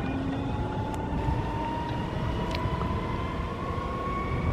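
Red S-Bahn electric multiple unit running on the line, its traction motors giving a whine that rises slowly and steadily in pitch as the train gathers speed, over a low rumble.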